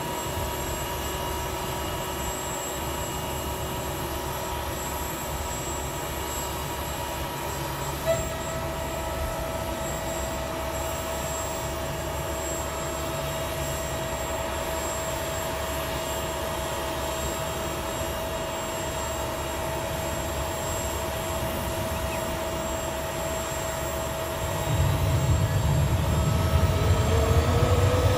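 Sikorsky S-64 Air-Crane helicopter's twin turboshaft engines and rotor running on the ground with a steady turbine whine; a second whine tone comes in about a third of the way through. Near the end the rotor rumble gets much louder and a whine rises in pitch as it powers up toward lift-off.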